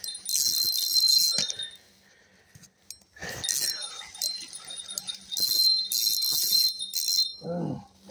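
Spinning reel's drag buzzing as a large hooked fish pulls line off the spool, in two runs of about a second and a half each, one near the start and one in the second half.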